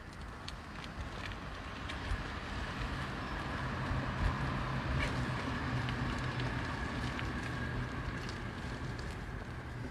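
Electric mobility scooter running along a path: a steady motor hum and whine that swells a little in the middle, with wind noise on the microphone.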